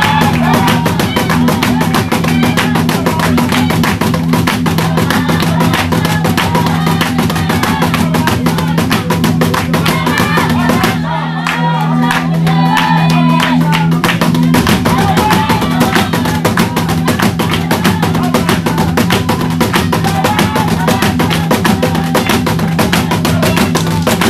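Zulu dance music: fast, driving drumming with group singing and chanting over it, under a steady low hum. The drumming drops back briefly about eleven seconds in.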